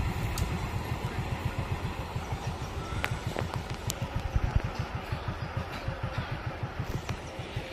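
Motorcycle engine idling with a steady, rapid low putter of about six beats a second.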